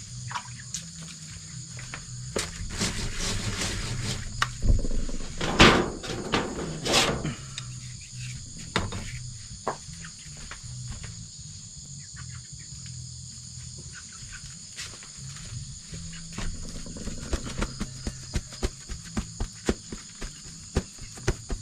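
A steady high chorus of insects calling. Over it come handling noises: louder rustling and knocks a few seconds in, then a run of sharp clicks, about three a second, near the end.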